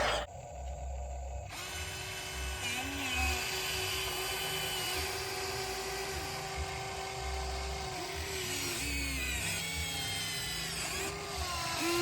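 Remote-control hydraulic excavator's small electric motors whining. The pitch holds steady, then dips and recovers several times as the load changes. It starts about a second and a half in, after a brief quieter gap.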